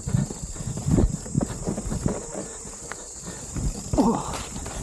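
Mountain bike rattling and knocking over a rough, rocky trail, irregular thumps from the wheels and frame, over a steady high insect-like drone. About four seconds in comes a short wavering pitched sound.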